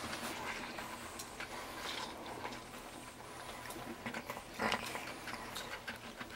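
French bulldog puppies play-fighting on a blanket: faint small puppy noises, rustling and scattered light clicks, with one brief louder sound about four and a half seconds in.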